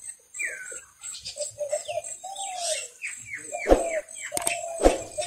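Birds chirping, with many quick falling chirps and a wavering call. Near the end come a few sharp clicks over a steady ringing tone.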